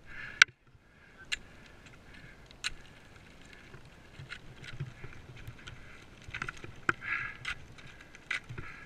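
Technical ice axes planted into hard snow and crampons kicking in on a steep slope, heard as a series of sharp, irregular strikes a second or two apart.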